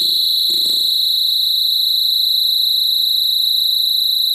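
Touch-controlled experimental noise machine (the OM-BOT Phantom Cell Elemental Wraith) putting out a steady, high-pitched electronic drone, with a short burst of noise about half a second in.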